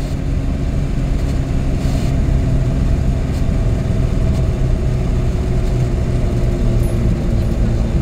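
Engine and road noise of a vehicle driving at a steady speed: a steady low drone with a faint steady hum above it.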